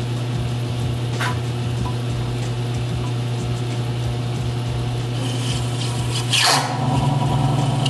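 A home-built concrete-bed metal lathe running with a steady motor hum while its insert tool faces the end of a spinning C360 brass bar, making a scraping cutting noise. About six and a half seconds in there is a sharp, louder burst of cutting noise, and the hum is stronger after it.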